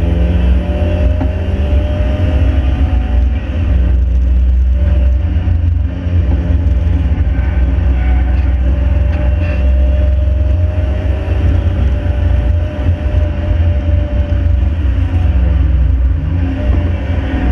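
Ford Fiesta's stock 1.7 Puma four-cylinder engine running at steady revs under load, over heavy low road and wind rumble. Near the end the engine pitch drops and rises again quickly.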